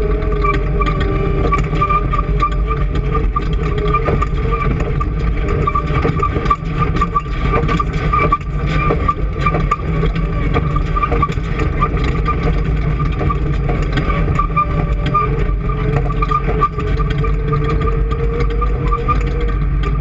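An engine running steadily and loudly, its pitch wavering slightly without any clear revving.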